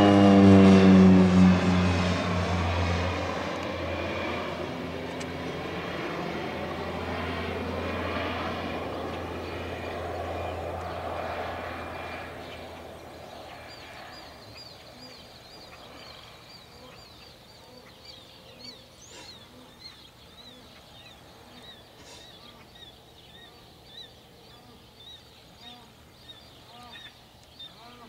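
Agricultural crop-spraying airplane passing low overhead, its engine and propeller note dropping in pitch as it goes by, then fading away over about a dozen seconds. After that, birds chirp in short repeated calls.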